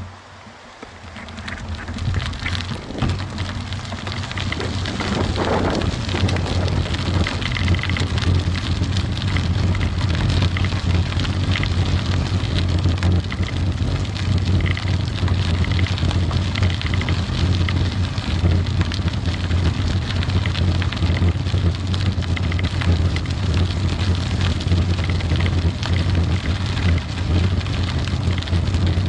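Wind buffeting the microphone of a bicycle-mounted action camera, mixed with tyre and road rumble from riding along a paved path. It builds over the first few seconds into a steady, loud rush of noise, after a brief knock at the very start.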